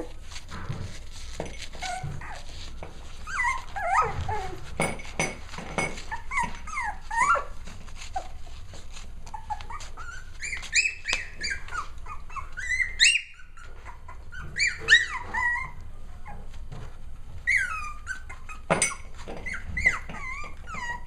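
Six-week-old Cavalier King Charles Spaniel puppies at play, giving many short high-pitched yips and whines that rise and fall in pitch, in clusters with short gaps between them.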